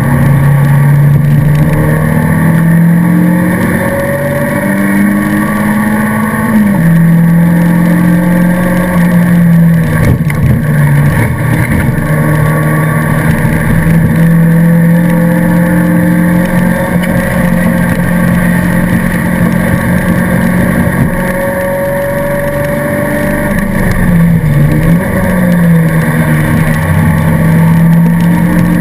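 Race car engine heard from inside the stripped cockpit under hard acceleration, its note climbing through the first seconds, dropping sharply with a gear change about six and a half seconds in, then held high and steady with a brief dip and recovery near the end.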